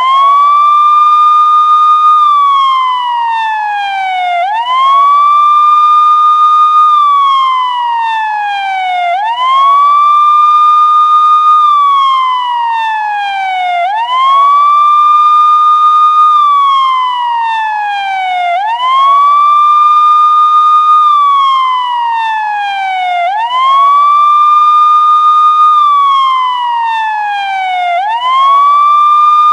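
Police siren in a slow wail, repeating about every four and a half seconds: the pitch sweeps up quickly, holds high for about two seconds, then glides slowly back down.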